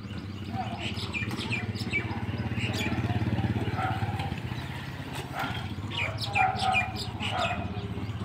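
Birds chirping in short, repeated falling calls over a steady low engine hum, which swells a few seconds in.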